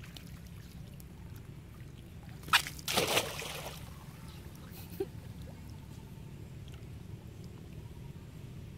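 A monkey plunging into water: a sharp splash about two and a half seconds in, followed by about a second of sloshing, then only small water sounds as it swims.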